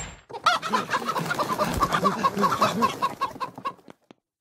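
Chicken-like clucking: a long, fast run of short clucks that trails off near the end.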